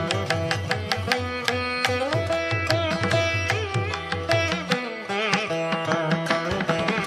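Instrumental background music in a South Indian classical style: a string melody with bending notes over a steady drum beat.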